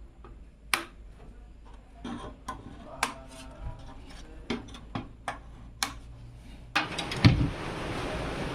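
Irregular sharp clicks and knocks, about a dozen, of hard case parts being handled. About two-thirds in, a steady hiss starts, with a couple of dull thumps.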